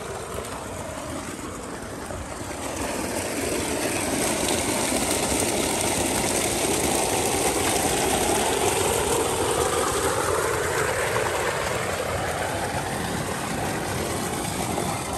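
An engine running steadily with a rapid low pulsing, getting a little louder a few seconds in.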